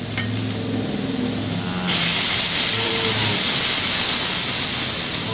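Handheld electric nano steam gun spraying water mist: a steady hiss over the low hum of its pump. About two seconds in, the hiss jumps suddenly louder as the spray output is turned up.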